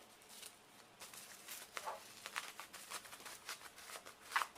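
Bubble-wrap parcel packaging being unwrapped by hand: irregular rustling and crinkling of plastic, with a sharper crackle near the end.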